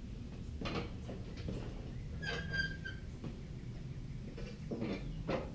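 Riding-mower body parts being handled during disassembly: a few knocks and rattles, and one short, steady, high squeak about two seconds in.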